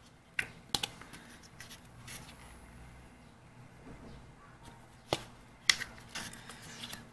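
Pages of a glossy CD photobook being turned and handled, with a few sharp paper snaps: two close together near the start and two about five seconds in, the second of these the loudest, followed by soft rustling.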